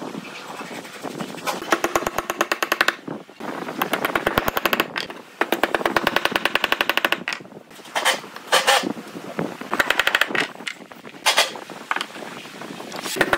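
Cordless drill driving screws into pine, in about six short rattling bursts of rapid clicks.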